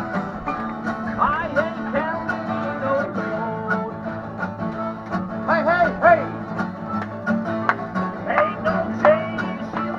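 Informal acoustic jam in a country-bluegrass style: two acoustic guitars strumming chords, with a harmonica playing a bending melody and another plucked string instrument joining in.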